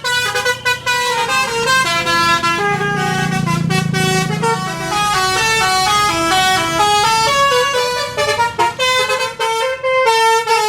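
Basuri telolet multi-tone bus horn playing a tune, its notes stepping up and down in pitch, quick short notes at first and longer held ones later. A low rumble swells under it around three to four seconds in.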